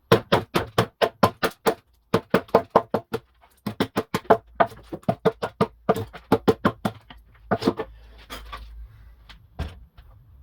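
Hammer blows on larch wood, in quick runs of about five or six knocks a second with short pauses between runs, thinning to a few single knocks near the end.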